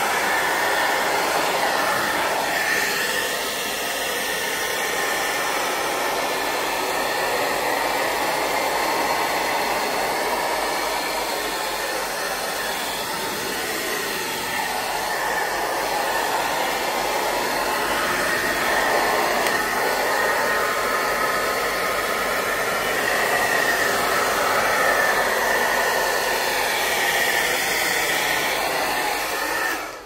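Handheld hairdryer running on its hottest setting, a steady rush of blown air with a faint steady high tone, heating its coiled curly cord. It cuts off at the very end.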